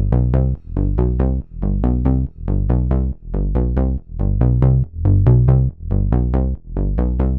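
Electronic background music: a synthesizer pattern of short pulsing notes over a deep bass, about two to three pulses a second.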